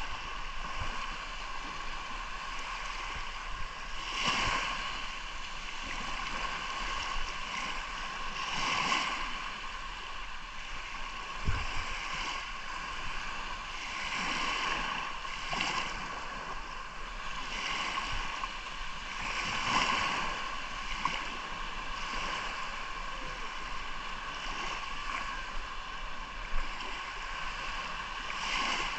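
Sea surf washing ashore: a steady rush of water with a wave breaking and swelling louder about every five seconds.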